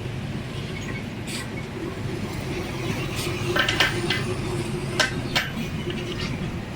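Several short, sharp metal clinks and taps, loosely spaced, over a steady low rumble.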